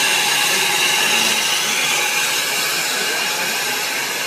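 Narrow-gauge steam locomotive letting off steam: a loud, steady hiss that eases slightly toward the end.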